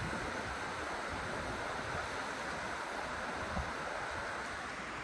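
Steady rush of flowing river water, with light wind on the microphone.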